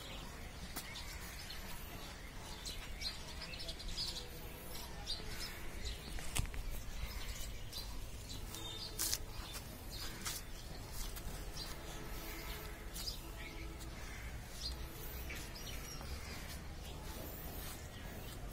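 Small birds chirping now and then over a steady low outdoor rumble, with a few short clicks.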